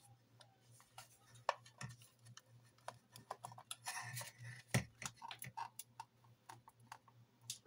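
Faint, irregular clicks and taps of a 1/72 plastic model kit being handled: the dry-fitted wings and fuselage of a MiG-25 knocking against each other and against the fingers, with one louder knock about two-thirds of the way through, over a steady low hum.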